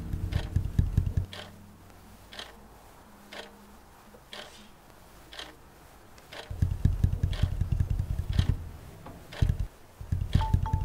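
Steady ticking about once a second, with bursts of a low buzzing rattle near the start and again from about six and a half seconds in.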